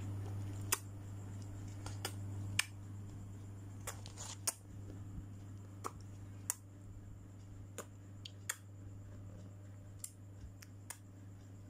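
Faint, irregular small clicks and taps, about a dozen scattered through, over a steady low hum.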